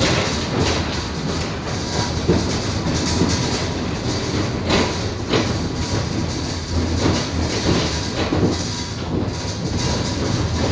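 Tram running on rails: a steady rumble with irregular clicks and knocks from the wheels on the track.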